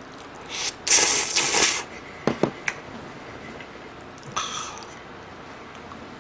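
A person slurping creamy bacon carbonara noodles: a loud slurp lasting about a second near the start, then two quick clicks of the fork against the dish, and a shorter rush of noise a little past halfway.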